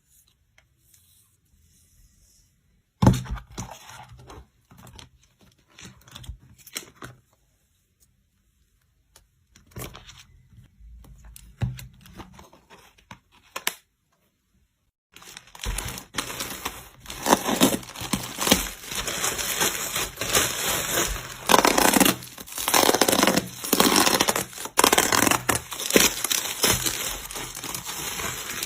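Packaging being torn open and handled during an unboxing: after a short quiet start, scattered rustling and clicks, then, after a brief pause about halfway through, continuous loud crinkling and tearing.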